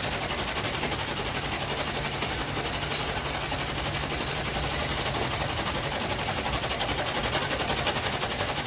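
A machine running steadily with a fast, even clatter of many beats a second.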